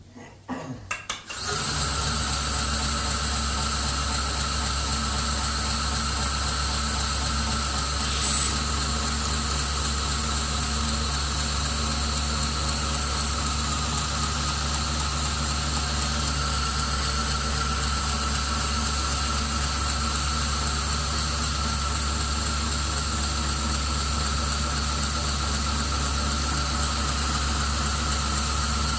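A 2x72 belt grinder spinning up and then running steadily with a 1,000-grit belt, a smooth whirr with a high whine over it. About eight seconds in there is a brief, louder burst.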